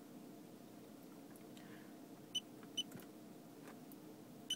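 Short high electronic beeps from a D1 Spec gauge controller as its buttons are pressed to change the gauges' backlight colour: two half a second apart around the middle, and one more at the very end, over a faint steady hum.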